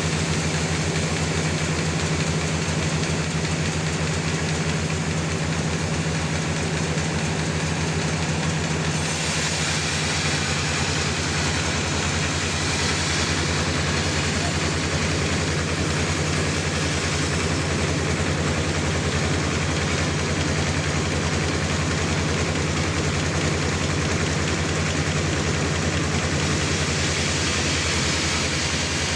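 Log sawmill running with a steady engine hum; about nine seconds in a louder hiss joins as the blade cuts through a large trembesi (rain tree) log, easing off near the end.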